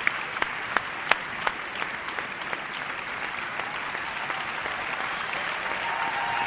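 Audience applauding, with one pair of hands close by clapping in a steady beat of about three claps a second during the first two seconds.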